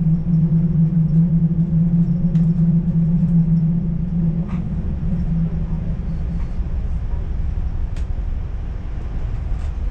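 Electric train running at speed, heard from inside the carriage: a continuous low rumble of the wheels on the rails, with a steady low hum that fades out about halfway through, and a few sharp clicks from the track.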